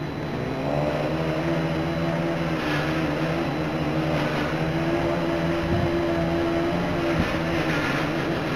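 Motors and propellers of a ZMR250 racing quadcopter spinning at a steady idle while it sits on the ground, a hum that rises a little in pitch about a second in and then holds.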